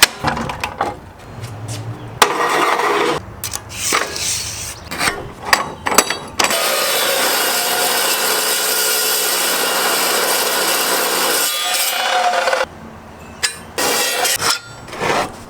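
Workshop metal-fabrication sounds: scattered clanks and knocks of steel parts being handled, then a power tool cutting steel with a steady, even noise for about five seconds, then more knocks.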